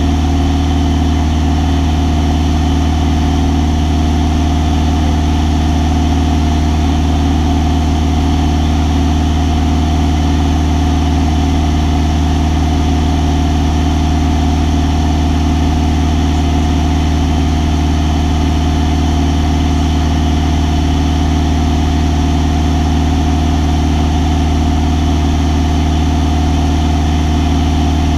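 Single-engine light aircraft's piston engine and propeller droning steadily in flight, heard from inside the cockpit, with a strong deep hum.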